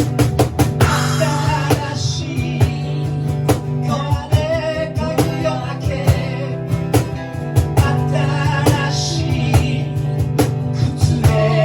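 A rock band playing with a steady drum beat, guitar lines and a held low drone underneath.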